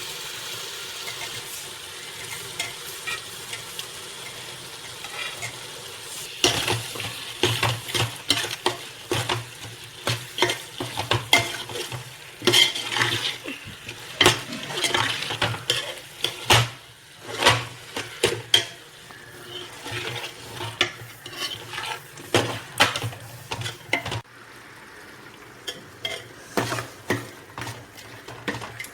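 Prawns sizzling in onion-tomato masala in a cooking pot, then from about six seconds in a spoon stirring them, scraping and clicking against the pot over the continued sizzle.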